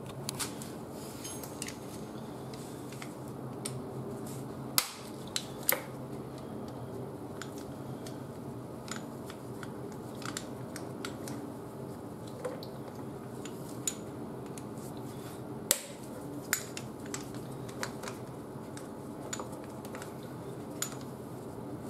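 Scattered small metallic clicks and taps of a hand tool on the screws holding a motorcycle's front mudguard as they are undone, with sharper knocks about five seconds in and again near sixteen seconds, over a steady low hum.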